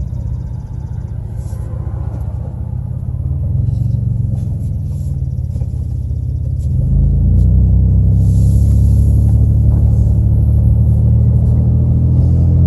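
Motor vehicle driving: steady low engine and road rumble, growing louder about seven seconds in as it picks up speed.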